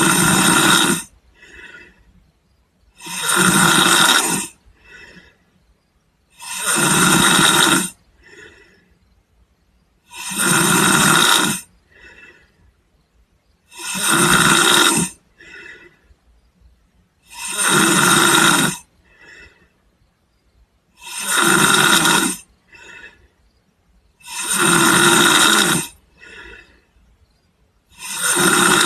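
A man snoring in sleep: a loud snore about every three and a half seconds, each followed about a second later by a shorter, softer one, in a steady, even rhythm.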